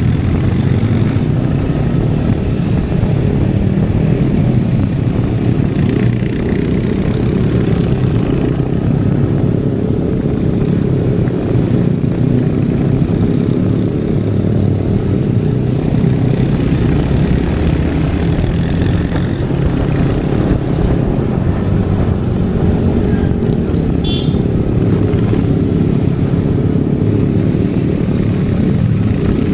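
Royal Enfield Hunter 350's single-cylinder engine and exhaust running steadily while the motorcycle is ridden, a continuous low thumping drone. A brief high-pitched chirp cuts in about 24 seconds in.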